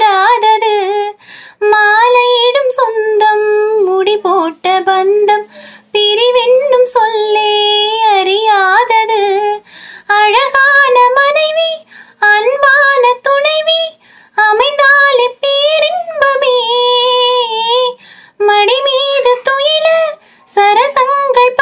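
A solo high-pitched voice sings a Tamil song in long, wavering phrases broken by short pauses, over faint sustained accompaniment.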